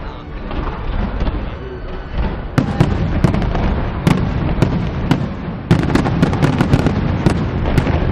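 Fireworks display: aerial shells bursting, with a low continuous rumble at first, then from about two and a half seconds in a rapid run of sharp bangs and crackles that grows denser near the end.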